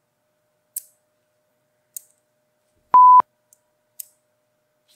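Sharp snips of hobby side cutters on plastic model-kit parts, a few single clicks about a second apart. About three seconds in, a short, loud, pure beep of one steady tone, the loudest sound here.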